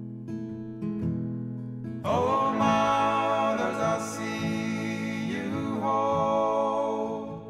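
Background song: acoustic guitar picking, with a voice coming in singing about two seconds in.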